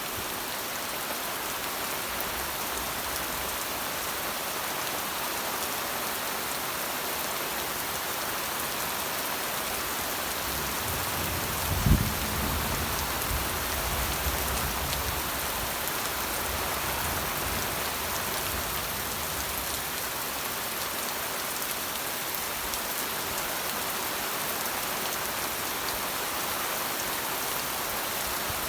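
Steady rain falling on surfaces, an even unbroken hiss. About twelve seconds in, a low thud sets off a deep rumble that fades over several seconds.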